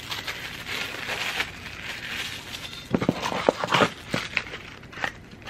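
Clear plastic bag crinkling and rustling as a herb grinder is handled inside it. About three seconds in come several sharp knocks and taps from handling a small cardboard box.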